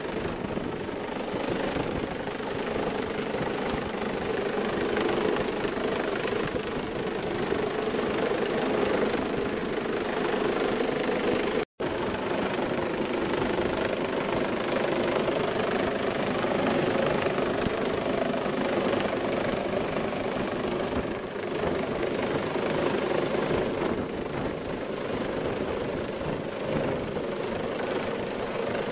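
Coastguard search-and-rescue helicopter hovering close overhead: a loud, steady rush of rotor and engine noise. The sound cuts out for an instant about twelve seconds in.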